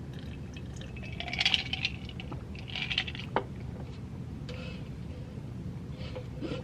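Carbonated soda being sipped and swallowed, soft liquid sounds, with a single light click about three and a half seconds in.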